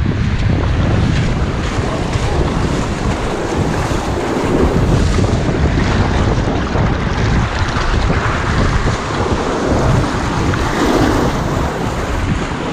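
Wind buffeting the microphone in uneven gusts over the steady wash of ocean surf breaking on the beach.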